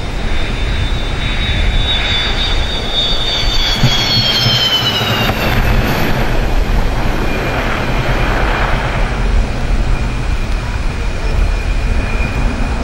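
MiG-29's twin Klimov RD-33 turbofans during the landing rollout, with a steady heavy rumble of engines, airflow and runway as the jet slows. A high whine falls in pitch from about two to five seconds in.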